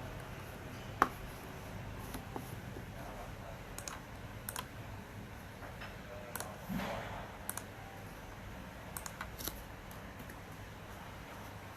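Scattered light clicks and taps at an uneven pace, the sharpest about a second in, over a low steady background hum.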